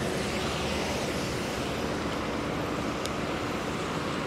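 Steady, even city street noise: a wash of traffic and background hum with no distinct events.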